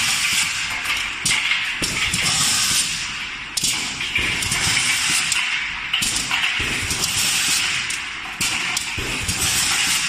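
Automatic aerosol can filling and crimping line running: a steady pneumatic hiss with irregular clicks and taps of metal cans knocking along the conveyor and under the filling heads.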